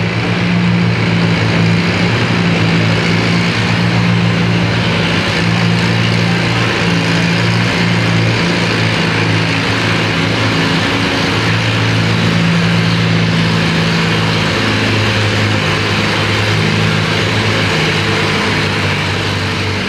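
Antique tractor engine running hard under full load as it pulls a weight-transfer sled, a loud, steady engine note held throughout the pull.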